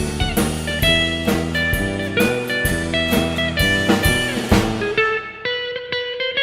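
Background music: a guitar-led band track with a drum kit beat, the drums thinning out about five seconds in.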